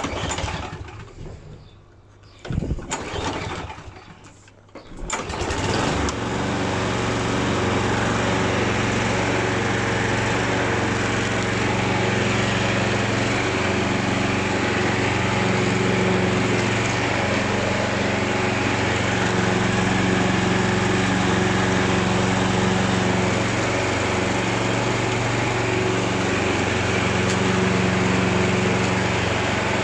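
Hayter Harrier 41 lawn mower's petrol engine being pull-started: short bursts from the recoil cord in the first few seconds, then it catches about five seconds in and runs steadily.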